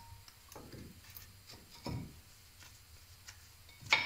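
New brake pads being seated into the caliper bracket's metal clips: a few light clicks and taps of metal on metal, with a dull knock about two seconds in and the loudest, a sharp click with a brief ring, near the end.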